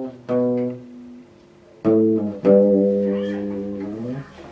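Solid-body electric guitar played clean: a couple of short plucked notes, then a note struck about two seconds in that rings out for about two seconds before it is stopped.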